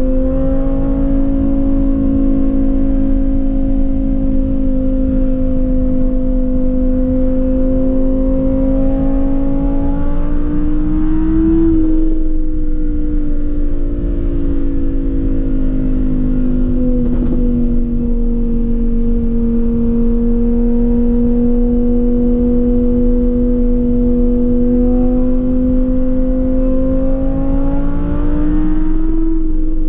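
Lamborghini Huracán Performante's V10 heard from inside the cabin, cruising in fourth gear at highway speed with a steady engine drone over road noise. The engine note climbs a little about ten seconds in, drops back at about twelve seconds, and climbs again near the end.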